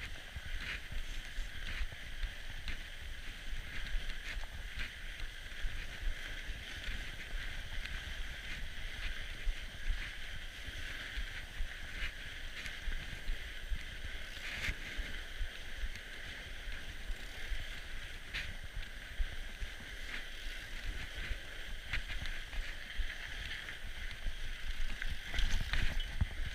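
Fat-tyre mountain bike riding over a packed-snow trail: a steady rumble and hiss of tyres and drivetrain, with frequent clicks and rattles of the bike over bumps, a few louder knocks near the end.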